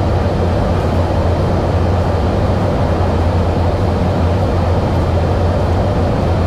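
Steady, loud drone of aircraft engines and airflow heard inside a refuelling tanker's cabin, with a strong low hum beneath.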